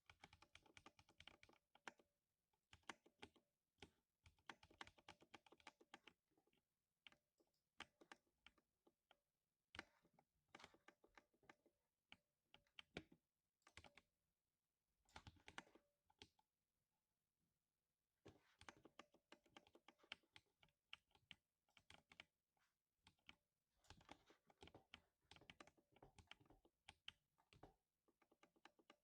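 Typing on a lubed 60% mechanical keyboard: runs of rapid, deep 'thock' keystrokes in bursts, with brief pauses about 14 and 17 seconds in.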